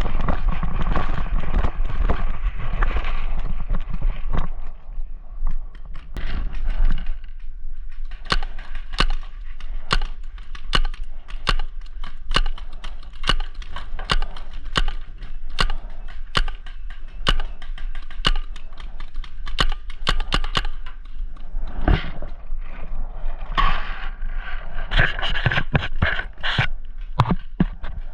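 Paintball markers firing: a long string of sharp pops, one or two a second, starting after a few seconds of rustling noise.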